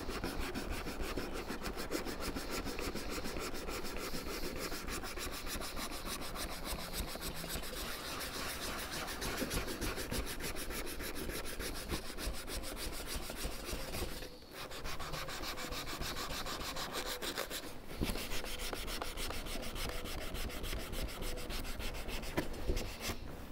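Hand sanding with folded 180-grit sandpaper on a plastic wheel trim: quick back-and-forth rubbing strokes that smooth the repaired spots ready for primer. The strokes stop briefly twice in the second half.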